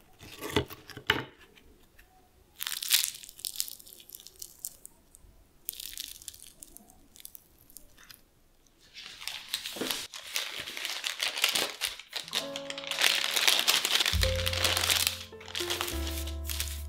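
Crisp baked puff pastry cheese twists crackling and crunching as they are picked up and pulled apart, in several short sharp crackles, then a longer stretch of flaky rustling and tearing. About twelve seconds in, background music with a steady bass comes in over it.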